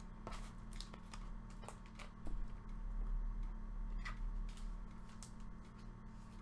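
Faint scattered clicks and taps of things being handled, over a steady low hum.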